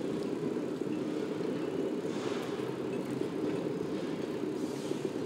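Steady rolling noise of a bicycle riding over paving slabs, with road traffic alongside; a passing vehicle swells up briefly about two seconds in and again near the end.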